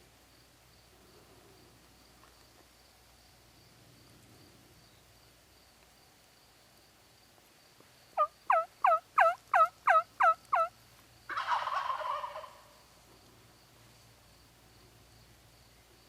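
A run of eight sharp turkey yelps, about three a second, then about half a second later a wild turkey gobbling in one rattling burst of about a second and a half.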